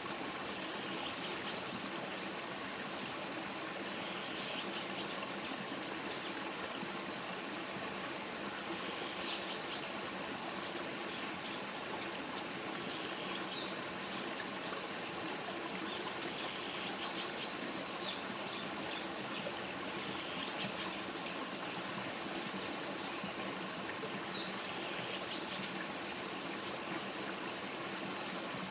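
A stream of water flowing steadily, a continuous trickling rush, with brief higher-pitched sounds over it every few seconds.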